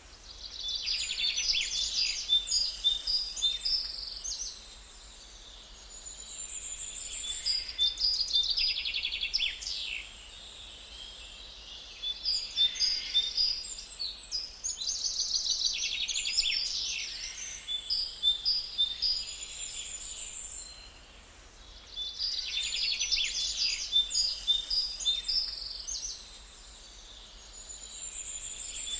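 Pet birds in an aviary chirping and chattering in bouts of rapid, high trills every few seconds, with brief quieter pauses between.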